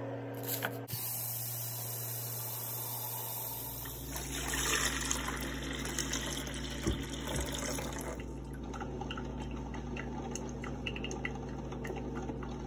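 Water running and pouring as a Mr. Coffee drip coffee maker is filled, then the machine brewing, with a patter of small crackling drips into the glass carafe from about two thirds of the way in.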